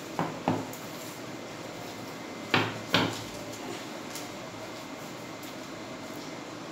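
Short knocks of things being picked up and handled: two right at the start, then two louder ones about two and a half seconds later, over a steady room hiss.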